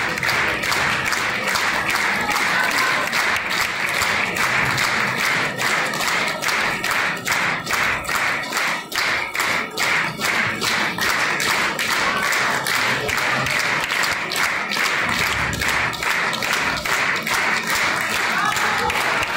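Theatre audience and cast applauding. The clapping falls into a regular rhythm in unison, at about three claps a second.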